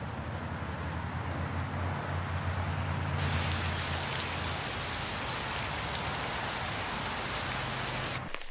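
Steady rain falling on pavement and puddles, an even hiss with a low hum underneath; the hiss turns brighter and heavier about three seconds in, then cuts off abruptly just before the end.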